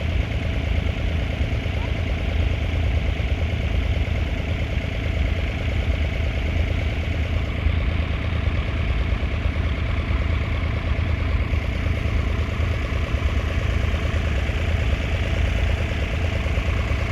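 Three-cylinder 2.7-litre diesel engine of a 1969 David Brown 780 tractor running at a steady speed, with an even, rapid low pulsing that holds unchanged throughout.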